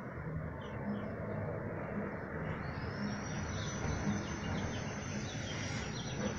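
Outdoor ambience: small birds chirping over a steady background hum. A thin, high steady whine joins about two and a half seconds in.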